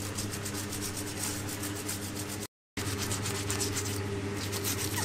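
Quick back-and-forth scrubbing strokes, about five a second, as a metal machine part is rubbed clean, over a steady low hum. The sound drops out briefly about two and a half seconds in.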